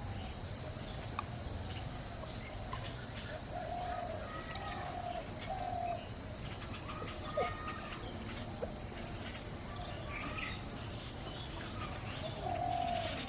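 Dove cooing outdoors, in runs of three short notes, with fainter small-bird chirps.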